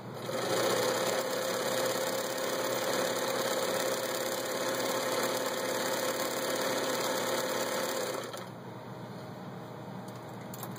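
Vintage Bernina Record 830 sewing machine running steadily as it stitches through fabric, then stopping about eight seconds in.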